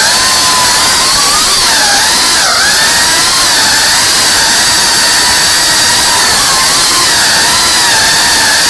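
GEPRC Cinelog cinewhoop FPV drone's brushless motors and ducted propellers whining in flight over a steady rush of prop wash. The pitch wobbles with throttle, dipping twice between about one and a half and two and a half seconds in, and rising again near the end.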